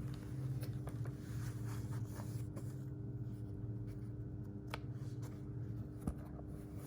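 Light handling noises, soft rustles and small clicks, with a sharper tap about six seconds in, over a steady low hum.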